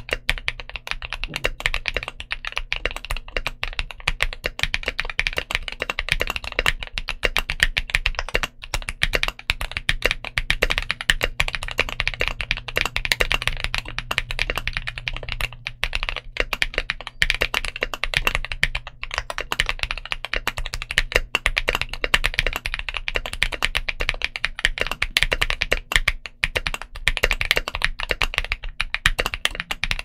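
Fast, continuous typing on an Ajazz AC067 mechanical keyboard with CIY Asura tactile switches on an aluminium plate and dye-sub PBT Cherry-profile keycaps: a dense, unbroken stream of keystroke clacks, closely miked.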